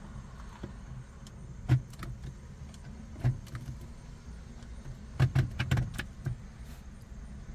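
Automatic transmission shift lever of a 2015 Nissan Sentra being moved through the gears with the engine off, clicking through its detents as the gear changes from R to D to P. There is a single click a little under two seconds in and another just over three seconds in, then a quick run of clicks between about five and six seconds, over a low steady hum. This is the shift-lever position check in the CVT control module reprogramming procedure.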